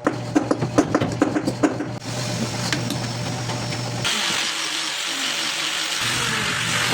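Electric power tool working wood: a rapid series of knocks over a steady motor hum for about two seconds, then a steady hissing run that grows louder and brighter about four seconds in.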